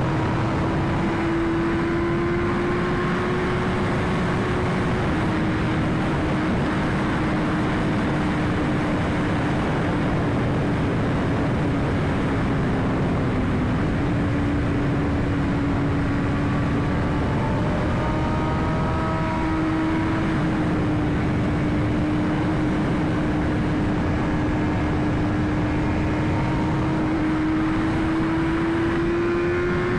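BMW S1000RR's inline-four engine running at fairly steady revs on the move, its note drifting slightly up and down with a few small steps, under heavy wind rush.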